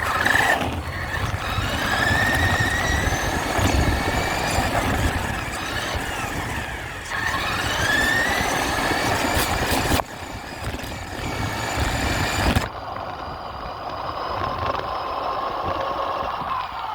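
RC truck's motor whining, its pitch rising and falling repeatedly as it speeds up and slows, over a steady hiss of rain and wet ground. About two-thirds of the way in, the high part of the hiss drops away suddenly.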